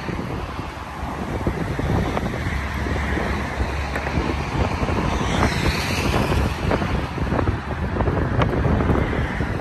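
A car passing on the road, its tyre and engine noise swelling to a peak about halfway through, with wind buffeting the microphone.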